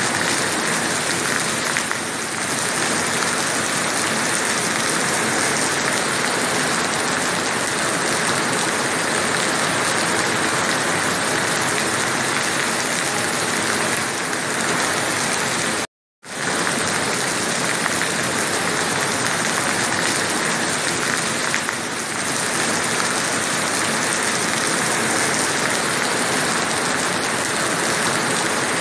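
Heavy rain pouring steadily, a dense even hiss, which drops out completely for about half a second just past the middle.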